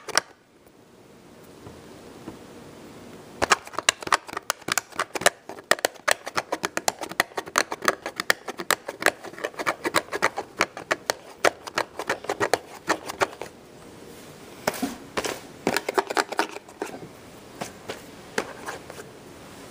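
Rapid clicking and scratching of hands handling a VHS tape case close to the microphone, in dense runs with short pauses, starting a few seconds in.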